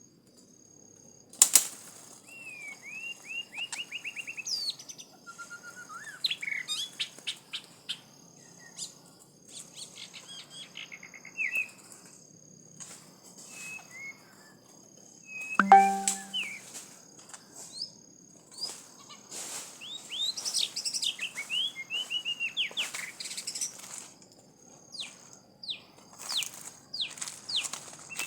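Small birds chirping and calling over and over in short rapid trills and sweeping notes, over a steady high insect drone. A sharp click comes about a second and a half in, and a louder thud about 16 seconds in.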